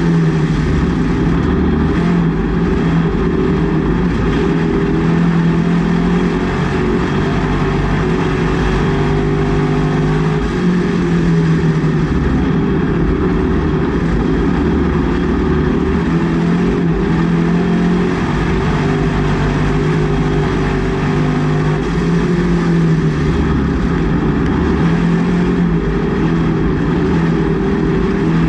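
Race car's engine running hard at speed, heard from inside the cockpit, its note rising and falling again and again as the throttle opens and lifts.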